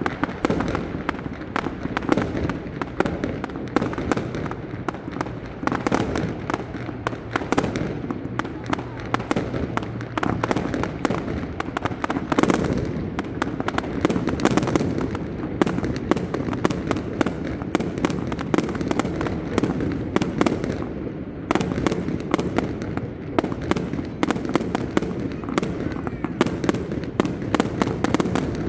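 Fireworks display: a rapid, continuous barrage of bangs and crackles.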